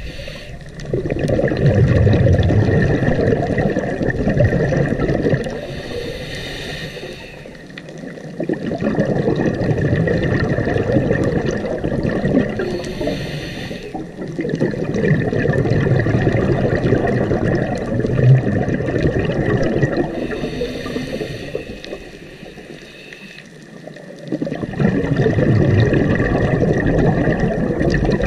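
Scuba diver breathing through a regulator underwater: a short hiss on each inhale, then a long stretch of exhaled bubbles rumbling and gurgling, the cycle repeating three times.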